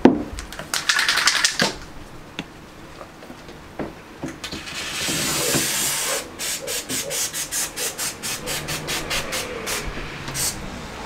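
Aerosol can of waterproof sealant spraying in hissing bursts, the longest about a second and a half, followed by a quick even rattle of about four or five clicks a second for several seconds, like the can being shaken. A sharp knock comes right at the start.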